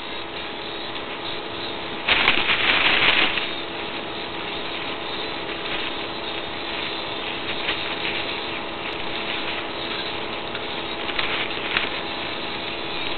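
Plastic produce bag crinkling as a pet rabbit noses and rummages in it among oranges. A loud crinkle lasts about a second, a couple of seconds in, with softer rustles later, over a steady hum.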